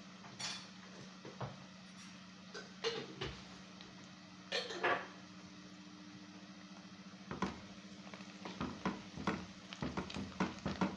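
Kitchen utensils knocking and scraping against a frying pan: a few scattered clinks at first, then from about seven seconds in a quick run of taps and scrapes as a spatula stirs onions frying in oil. A steady low hum runs underneath.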